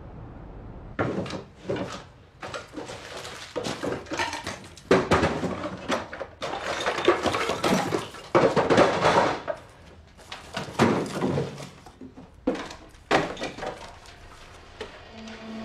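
Wooden furniture and household objects being banged, shoved and knocked over as a bedroom is ransacked: a busy run of thumps, slams and clattering, starting about a second in after a faint steady background.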